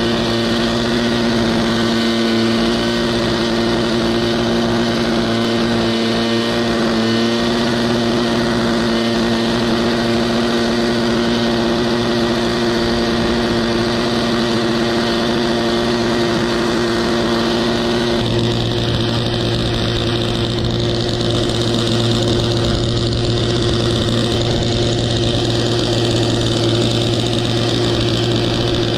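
Kubota GC-S500 self-propelled mower's two-stroke engine running steadily under load as it cuts tall, overgrown grass. About two-thirds of the way through, the engine note changes and a low hum grows stronger.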